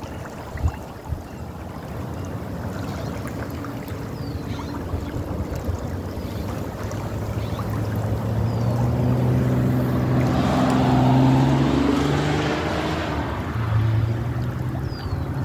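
A motor vehicle's engine passing, growing louder to a peak about ten to twelve seconds in and then fading, over a steady rushing background.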